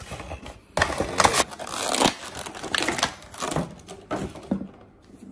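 Cardboard Funko Pop box and its clear plastic insert being handled as the figure is pulled out. Irregular crinkling, scraping and clicking, loudest about a second in and thinning out near the end.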